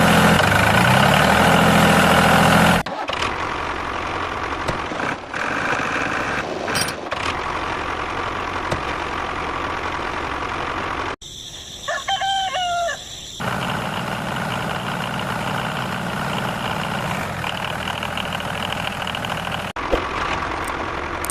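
Small motor of a DIY model tractor running, in several cut-together stretches; it speeds up with a rising whine in the first few seconds, then runs steadily. About eleven seconds in the motor drops out for a couple of seconds while a rooster crows.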